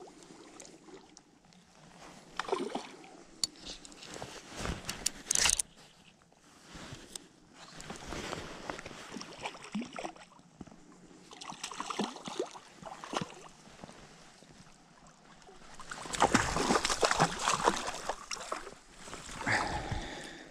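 Water splashing in repeated bursts as a hooked rainbow trout thrashes at the surface and is scooped into a landing net, the loudest and longest burst of splashing a few seconds before the end.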